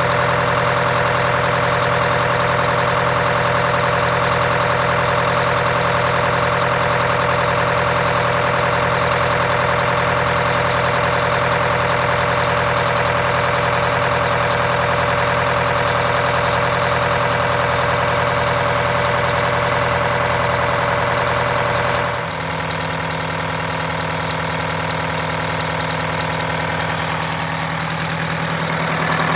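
Detroit Diesel 8V92TA two-stroke turbocharged V8 diesel running at idle, freshly rebuilt with new pistons and liners. About two-thirds of the way through, the engine note changes abruptly to a slightly quieter, different pitch, and it rises a little near the end.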